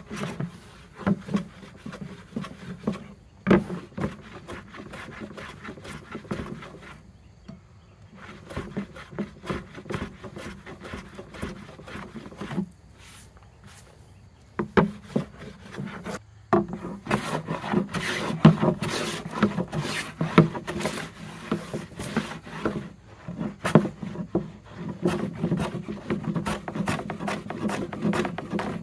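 Hand plane shaving a pine board in repeated short strokes, with a couple of brief pauses between runs of strokes.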